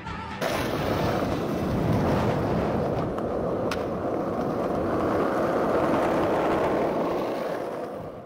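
Skateboard wheels rolling over rough asphalt: a steady, loud grinding rumble that starts abruptly about half a second in, when the music cuts off.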